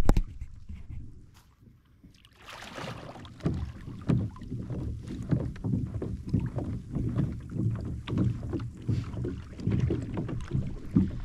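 Shallow water sloshing and splashing as someone moves through it: a quiet start, a louder splash about two and a half seconds in, then an uneven run of low sloshes about two a second.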